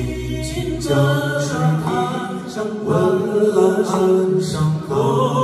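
Live Chinese folk band, several voices singing together in harmony. A low bass note holds at first and drops out about a second in, leaving the voices largely on their own.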